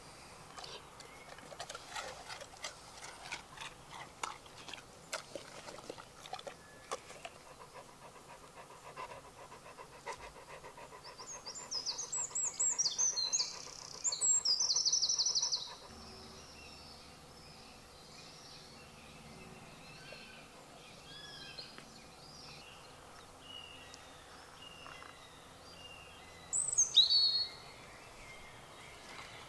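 A golden retriever panting, with quick clicks through the first several seconds. A songbird sings a fast, high trilling phrase about twelve seconds in, and a single loud, falling bird call comes near the end.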